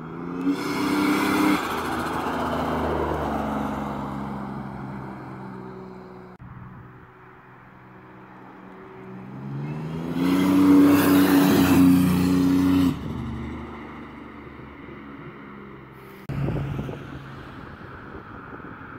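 Turbocharged Toyota 4Runner SUV accelerating past twice, its engine note rising in pitch each time with a hiss from the turbo. The second run is the loudest and cuts off abruptly. A short sudden burst of noise comes near the end.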